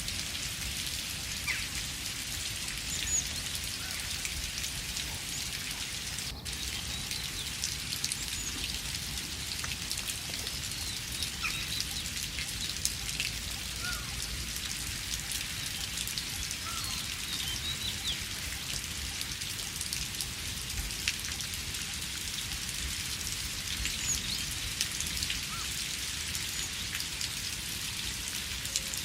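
Steady rain in a forest, an even hiss with many separate drops ticking. Now and then a few faint short bird chirps come through.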